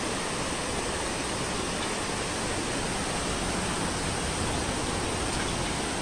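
Waterfall pouring down a rock face: a steady, even rush of falling water.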